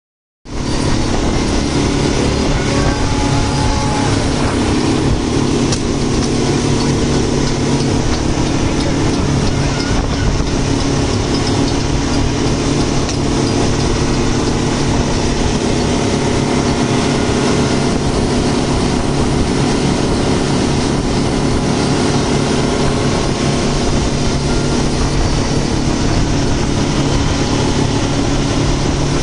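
Speedboat engine running steadily under way, a constant low hum with a rushing noise of water and wind over it.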